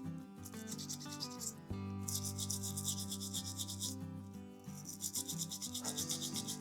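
Toothbrush bristles scrubbing the gunk out of a Swiss Army knife's opened tools with rapid back-and-forth strokes, in three bouts with short pauses between.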